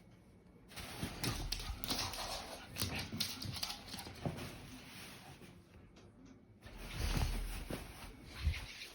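A dog at play: a run of scuffling noises and short knocks. It starts just under a second in, eases off briefly around six seconds, then picks up again.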